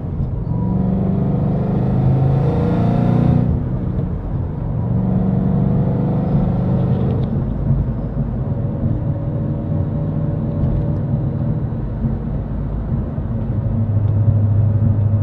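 Supercharged 5.4-litre V8 of a 2011 Ford Shelby GT500 breathing through an MBRP mandrel-bent stainless steel header-back exhaust, heard from inside the cabin. The engine accelerates through the gears: the exhaust note climbs in pitch, falls at each upshift and climbs again. Near the end it settles into a steady low drone at cruising revs in sixth gear.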